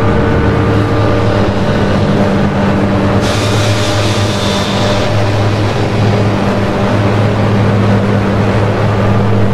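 Dark droning noise music: a loud steady low hum with a hiss layered over it. The hiss brightens abruptly about three seconds in and falls back about two seconds later.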